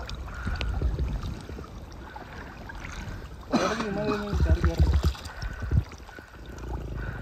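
Water sloshing and splashing as several people wade chest-deep through weedy backwater, stirring it up, with low rumbling swells throughout. A man's voice is heard briefly about halfway through.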